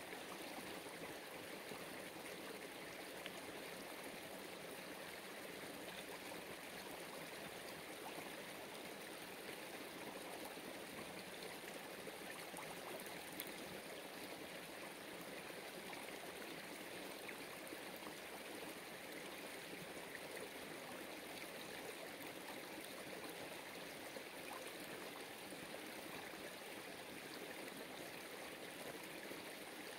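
Steady rush of running water, like a small stream.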